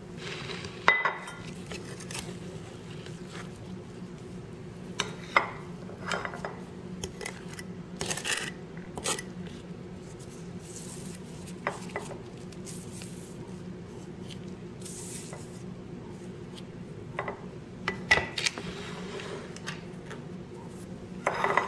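A metal cleaver scraping minced pork across a wooden chopping board, with scattered knocks and clinks as the meat is tipped into a ceramic bowl. A steady low hum runs underneath.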